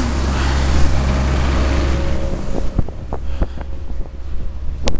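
Wind buffeting the microphone of a bicycle-mounted camera while riding, a heavy low rumble that eases about halfway through. In the quieter second half come a few sharp clicks and knocks.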